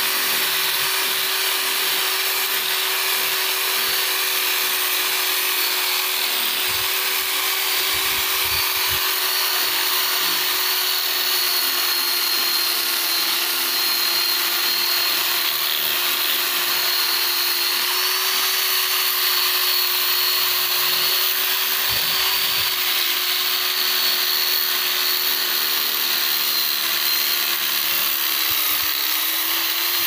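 Power drill fitted with a sanding disc running steadily, with a motor hum and a high whine, as the spinning disc sands the surfaces of a wooden furniture frame.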